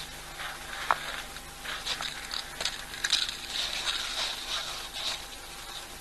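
Open-air waterhole ambience: a steady hiss with scattered short high chirps and clicks, a sharp click about a second in, and the chirps busiest in the middle.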